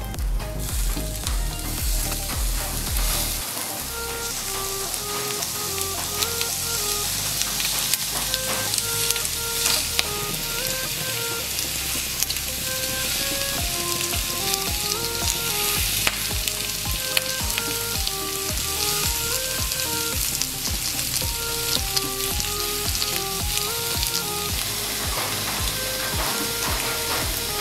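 Skewered pork belly sizzling as it fries in a nonstick pan, with scattered small crackles and pops. A soft background music melody plays underneath.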